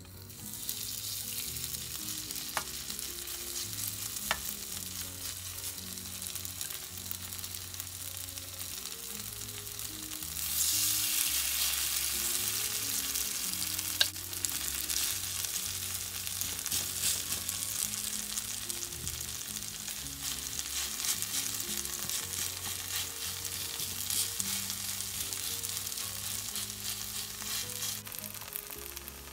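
Grated sweet potato sizzling as it fries in hot oil in a small non-stick pan, the sizzle growing louder about ten seconds in and easing near the end. A few sharp clicks sound over it.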